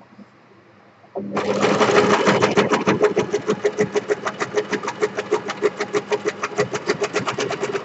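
Electric sewing machine starting about a second in and stitching steadily through a paper bookmark: a rapid, even clatter of needle strokes that stops at the end.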